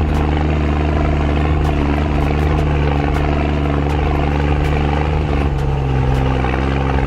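SUV engine running at steady low revs as it crawls up a rocky off-road trail, its note shifting slightly about five and a half seconds in, with faint scattered clicks over it.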